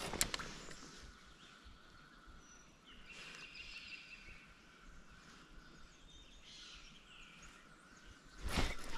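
Faint creekside outdoor ambience with birds chirping in the background. Near the end comes one short, loud burst of rustling noise.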